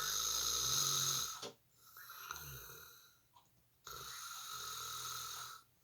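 A man snoring: a long, loud snore in the first second and a half, a softer low one after it, and another long snore from about four seconds in.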